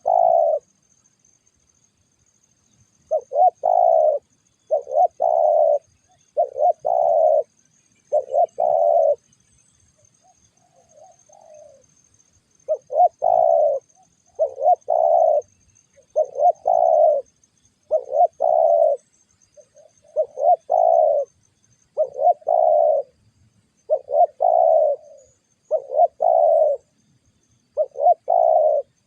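Spotted dove cooing: short phrases of about a second, repeated roughly every two seconds, with a pause of a few seconds about a third of the way through, during which a fainter, softer call is heard. A faint, steady high-pitched tone runs underneath.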